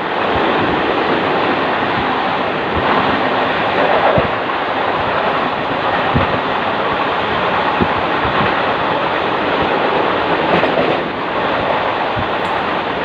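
Moving train: a steady rushing rumble with irregular knocks of the wheels over rail joints.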